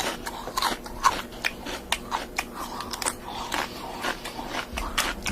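A person chewing food noisily: a run of irregular, sharp smacking clicks, about three a second.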